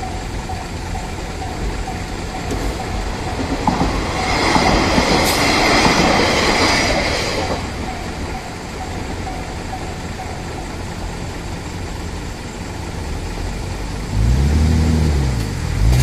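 Japanese level-crossing warning bell ringing steadily while a KiHa 40-series diesel railcar runs through the crossing, its wheels clattering and hissing on the rails, loudest about four to seven seconds in. Near the end a car engine revs up, rising and then falling in pitch.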